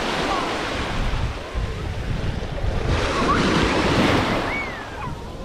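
Small sea waves breaking and washing over the shallow shore, with wind buffeting the microphone. The wash swells louder about three seconds in and eases off near the end.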